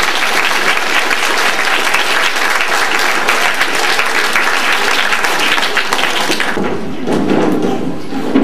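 Audience clapping, dense and steady, dying away about six and a half seconds in.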